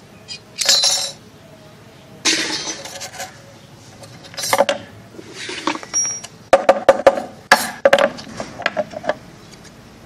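Thin sheet-metal strip being cut with shears: a series of metallic snips and clinks, with a quick run of sharp clicks in the second half.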